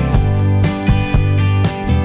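Background music with a steady beat and strong bass notes.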